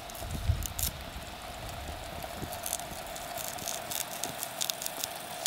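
Knife slicing a wild garlic clove by hand, the slices dropping into a small metal cooking pot: scattered soft crisp clicks and cuts, thickest toward the end, over a faint steady hum.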